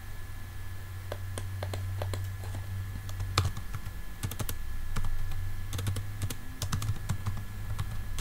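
Typing on a computer keyboard: irregular runs of keystrokes starting about a second in, over a steady low hum.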